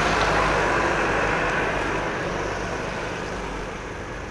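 Motor vehicle noise: a steady rushing hum, loudest at the start and fading gradually.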